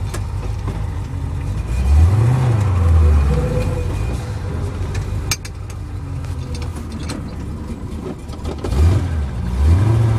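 1967 Ford Mustang GT fastback's V8 engine heard from inside the cabin as the car is driven. It revs up and falls back about two seconds in and rises again near the end, with a few sharp clicks around the middle.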